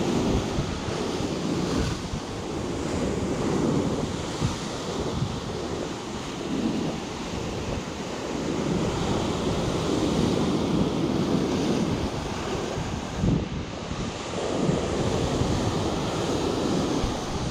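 Rough surf: waves breaking and surging in rising and falling swells, with strong wind buffeting the microphone.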